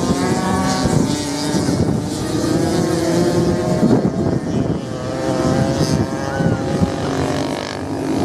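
Several off-road racing motorcycles running at once, their engines revving up and down as they accelerate and turn through the course, the pitches overlapping and shifting.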